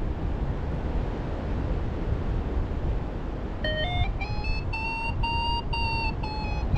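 Wind rushing over the microphone, then, about halfway in, a paragliding variometer beeping in short quick steps. Its pitch climbs and then sinks again, which signals lift strengthening and then weakening.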